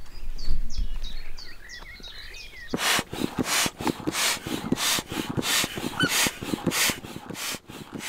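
A bird sings briefly, then an air pump takes over with even whooshing strokes, about three a second, pushing air through a hose into the inflatable chambers of a floating hide.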